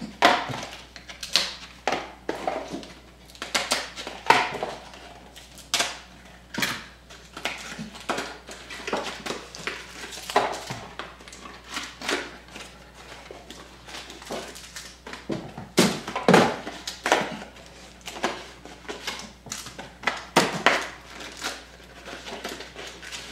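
Trading-card packs being torn open by hand: the wrappers crinkle and rustle in many short, irregular strokes as the cards are slid out and handled.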